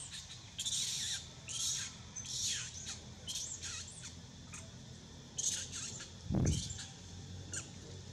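Juvenile long-tailed macaque giving short, shrill screams that fall in pitch, roughly once a second: the protest calls of a youngster being refused milk by its mother. A dull thump about six seconds in.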